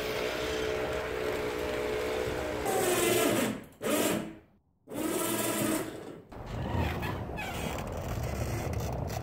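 A small electric motor whirring, first steadily, then in short runs that fall in pitch and cut off between runs, typical of the 12-volt winch that lifts the wooden hitch plow. After about six seconds a steady low rumble takes over.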